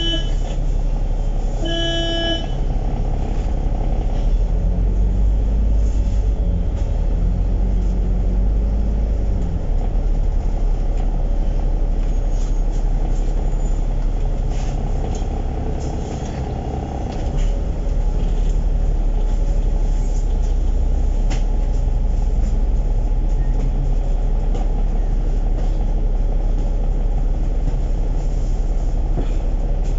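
Inside a moving KMB bus: steady engine and road rumble, the engine note rising and falling a few seconds in and easing briefly around the middle. Two short electronic beeps sound near the start, about two seconds apart.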